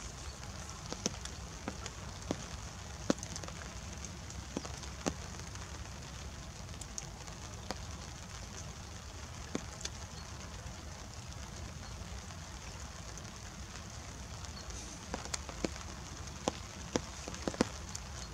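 Light rain: scattered drops tapping irregularly, a few a second and more often near the end, over a steady hiss and a low rumble.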